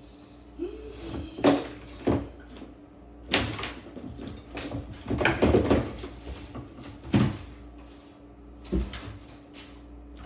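Irregular knocks and clunks, about six over ten seconds, from faucet parts and tools being handled and set down inside an under-sink cabinet.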